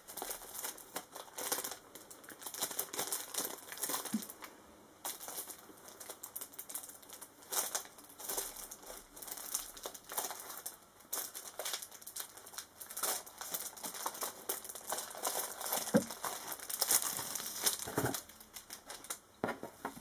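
Plastic packaging crinkling and rustling as it is handled, in irregular crackly bursts, with a couple of soft knocks near the end.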